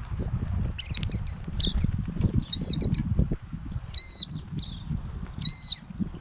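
Waxeyes (silvereyes) calling: a few faint short chirps, then three louder, short, high calls about a second and a half apart, over a low rumble.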